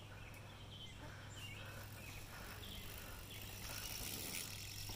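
Faint outdoor ambience: scattered short bird chirps over a low steady hum, and from about three and a half seconds in a faint pulsing high insect buzz.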